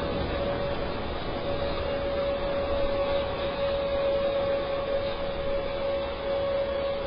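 EuroProp International TP400-D6 turboprop engine running steadily on a test run: a steady whine held at one pitch over a broad rushing noise.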